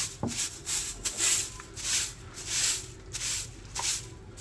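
Long-bristled hand broom sweeping a rough stone-paved floor in quick, even strokes, one swish about every 0.6 s.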